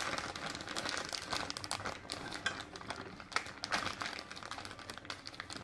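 A thin plastic microwave steam bag crinkling as it is handled and opened, and cauliflower rice is tipped out of it onto a plate; irregular crackles that thin out near the end.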